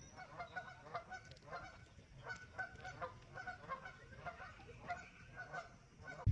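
Waterfowl calling: a long run of short honks, a few a second, fairly faint.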